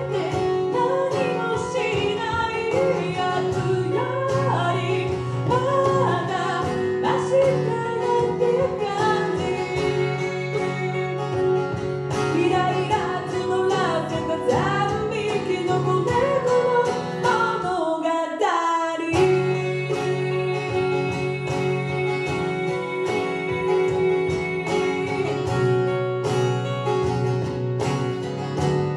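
Live acoustic song: a woman singing over acoustic guitar and layered backing built on a loop station. About eighteen seconds in the backing drops away for about a second with a falling sweep, then comes back in.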